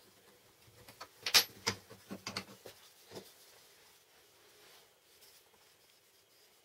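A small wooden jig being taken apart by hand on a workbench: a quick run of light clicks and knocks of wood and metal parts, the first the loudest, dying away by about three seconds in.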